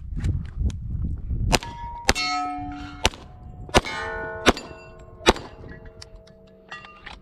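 Handgun shots at steel plate targets: six sharp shots over about four seconds, starting about a second and a half in. Each is followed by the ringing clang of a struck steel plate, the plates ringing at different pitches.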